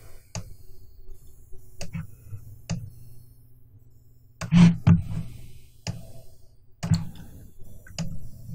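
Computer mouse clicks picked up by a desk microphone: a short sharp click every second or so over a low steady hum. There is one louder, longer noise about halfway through.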